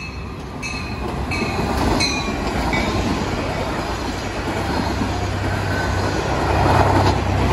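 A Caltrain commuter train passing at speed, its rumble and the rush and clatter of its wheels on the rails growing louder as the bilevel gallery cars go by. A bell rings in even strokes, a little under two a second, through the first few seconds.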